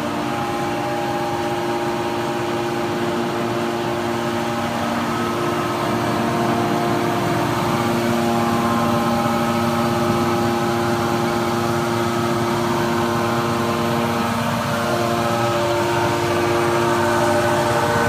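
Electric motors and hydraulic pumps of a metal baler's hydraulic power unit running, a steady hum made of several held tones over a mechanical noise, a little louder from about six seconds in.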